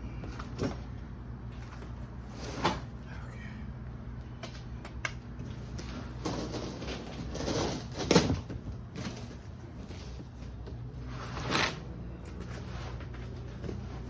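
Snowman decoration parts and a cardboard box being handled during packing: scattered knocks, scrapes and rustles, with the sharpest knocks about three, eight and eleven and a half seconds in.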